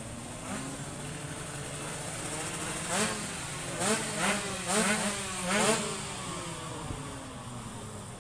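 Tuned two-stroke sport motorcycle engine revved in about five quick throttle blips, each rising sharply in pitch, over a steady engine hum.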